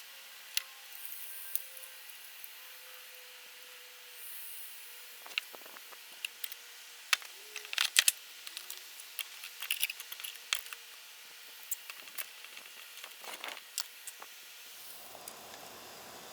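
Irregular light clicks and knocks from tools and wood pieces being handled and set down, busiest around the middle. A low steady noise comes in near the end.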